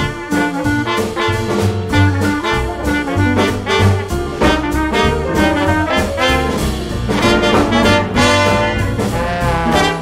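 Upbeat jazz or swing background music led by brass: trombone and trumpets over a steady beat.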